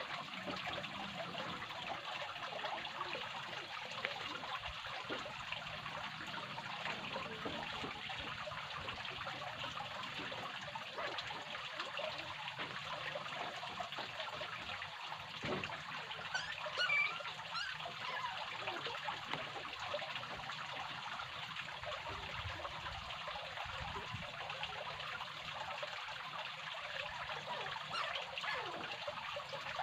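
Steady trickle of running water, with a few short chirps about halfway through.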